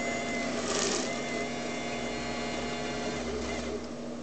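Coffee cappuccino vending machine running its vend cycle after the cup drops: a steady motor hum with a high whine, and a short hiss about a second in.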